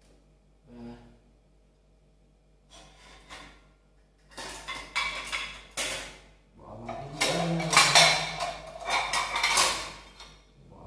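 A metal fork clinking and scraping against a metal pot, with dishes clattering. After a few faint knocks the clatter becomes a dense run of strikes in the second half.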